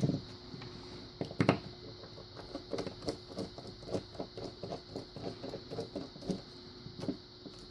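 Small metallic clicks and ticks from a Kenaurd pin-in-pin lock being taken apart with a screwdriver: two sharper clicks near the start, then a quick irregular run of light ticks.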